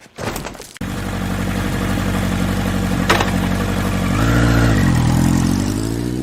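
A vehicle engine running and revving, its pitch dipping briefly in the middle and then rising steadily toward the end, with a few clicks right at the start and a sharp click about three seconds in.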